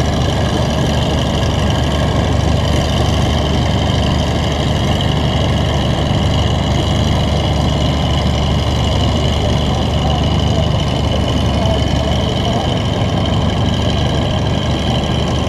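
FV432 armoured personnel carrier's Rolls-Royce K60 two-stroke multi-fuel engine idling steadily, with a steady high whine above the low engine note.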